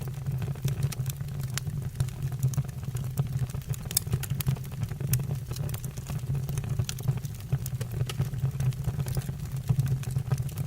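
Wood fire burning in a fireplace: a steady low rumble of the flames with frequent irregular crackles and pops from the burning logs.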